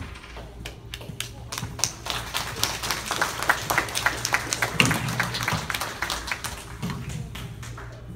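A small audience applauding. Scattered hand claps build up within the first couple of seconds, run thick for a few seconds, then thin out and die away.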